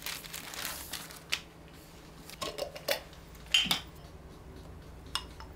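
Kitchen scissors snipping open a plastic tortilla package, with the plastic crinkling, followed by scattered knocks and clinks as a glass sauce jar and a wooden spoon are handled. The sharpest clink comes about three and a half seconds in.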